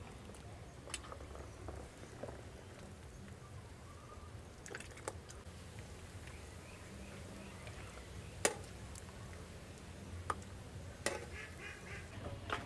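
Boiled pig skin and ears being lifted with metal tongs and dropped into a plastic basin of ice water: a few scattered splashes and clicks, the sharpest about eight seconds in, over a quiet low hum.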